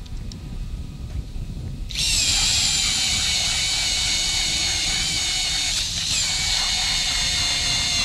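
Electric drill turning an ice auger as it bores through lake ice. The motor's high whine starts suddenly about two seconds in and runs steadily, dipping briefly in pitch about six seconds in as the auger takes load.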